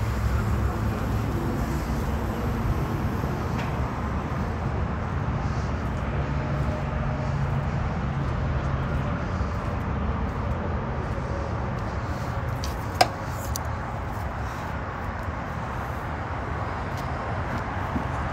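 Steady rumble of road traffic, with one sharp click about two-thirds of the way through.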